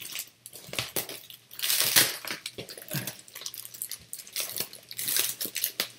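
Brown paper wrapping being crinkled and torn open by hand, in irregular crackly bursts.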